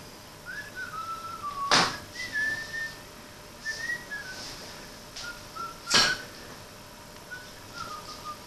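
A person whistling a wandering tune in short, separate notes. Two sharp knocks come through it, about two seconds in and again about six seconds in.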